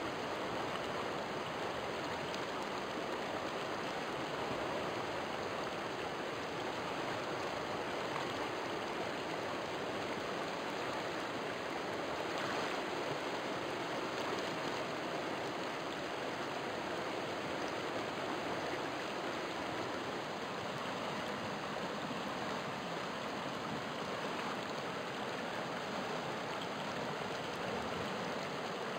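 River water flowing, a steady even rush with no breaks or changes.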